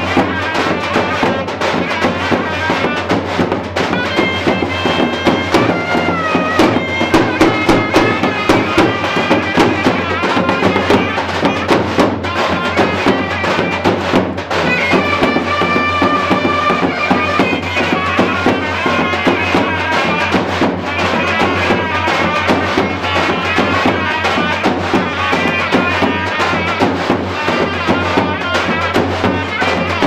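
Davul and zurna playing a traditional folk dance tune. The zurna carries a stepping, gliding melody over regular davul beats.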